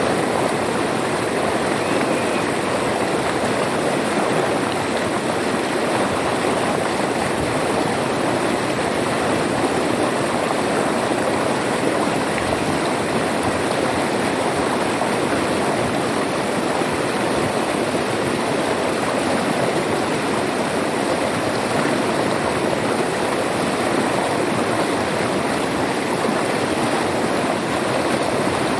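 River water flowing and rushing over rocks, a steady, unbroken sound.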